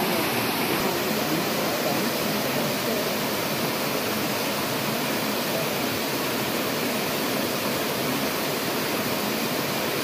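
Small waterfall and stream cascading over rocks: a steady, even rush of falling and tumbling water.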